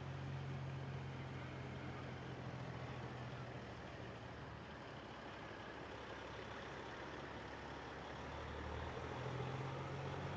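Semi truck's diesel engine running at low speed as the tractor pulls slowly past: a low, steady drone that weakens in the middle and grows louder again near the end.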